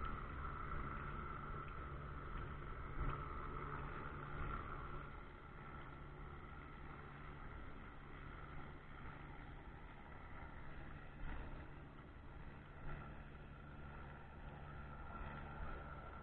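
Steady low drone of a running engine, with a faint steady whine above it, holding level with small bumps.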